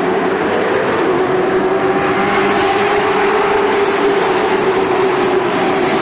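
A pack of late model stock cars' V8 engines running hard as the field streams past, many engines overlapping in one loud, steady drone that edges up a little in pitch.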